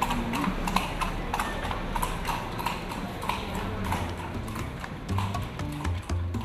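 Carriage horse's hooves clip-clopping steadily on a paved street. Music with bass notes comes in about five seconds in.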